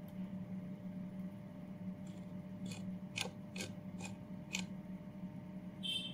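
Steady low hum with five sharp clicks, about two a second, in the middle, and a short high-pitched squeak near the end.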